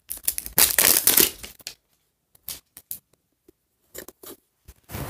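Plastic wrapping being torn and peeled off a toy package: a burst of crackling tearing about a second in, then scattered crackles and clicks, and another stretch of crinkling near the end.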